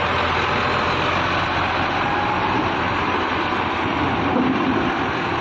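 Diesel engine of a white UD Quester tractor truck running steadily at close range as the truck creeps slowly past.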